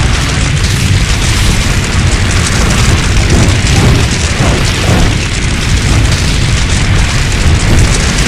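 Fire-breath sound effect: a loud, continuous rush of flame over a heavy, deep rumble, holding steady without a break.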